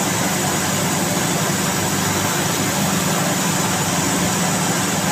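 An engine running steadily at idle, with an even hiss over it.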